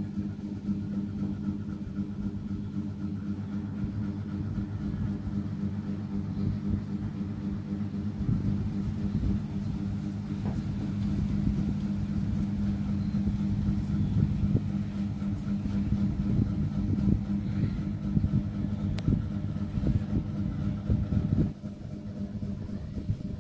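A sleeping cat's steady low rumble close to the microphone, continuous rather than broken into separate breaths, dropping in level near the end.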